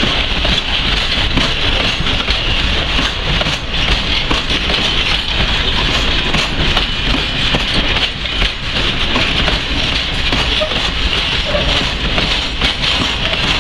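Freight train of open coal wagons (Eaos gondolas) rolling past, a continuous loud rumble and rush of steel wheels on rail, with repeated clacks as the wheelsets cross rail joints.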